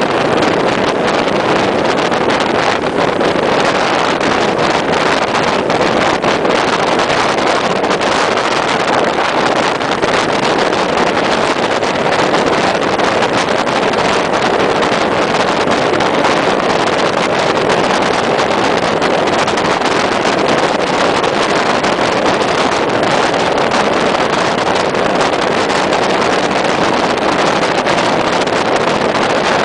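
Steady rush of wind and road noise from a moving vehicle, picked up by an onboard camera's microphone.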